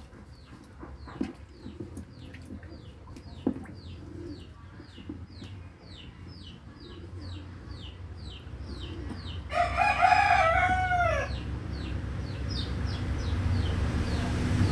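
A rooster crows once, loudly, about ten seconds in: a single call of nearly two seconds that rises and then falls. Around it a small bird chirps rapidly and repeatedly, about three high falling chirps a second, over a low rumble.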